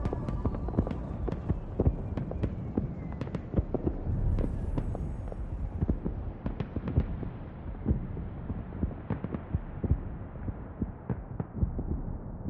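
Irregular crackling pops over a dense low rumble, like a firework or crackle effect, growing duller as the high end fades out over several seconds.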